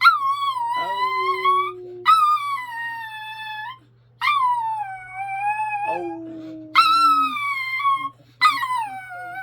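Dog howling, 'singing': five long howls, each starting high and sliding down in pitch, with short breaks between.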